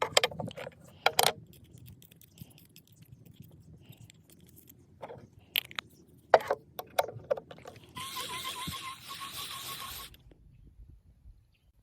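Clinks, knocks and scrapes of utensils being handled, in two clusters. About eight seconds in comes a steady hiss lasting about two seconds, which cuts off abruptly.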